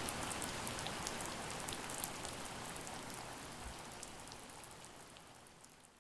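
Steady hiss of rain with the ticks of single drops, fading out over the last two seconds.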